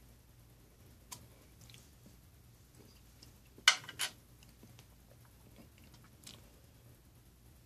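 A person chewing a mouthful of soft peanut butter and jelly sandwich, with soft, scattered mouth sounds. Just under four seconds in there are two sharp clicks about a third of a second apart, the loudest sounds here.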